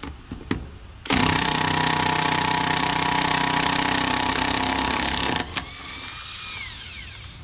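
Cordless impact wrench hammering on a trailer wheel's lug nut for about four seconds, then stopping, followed by a fainter falling whine.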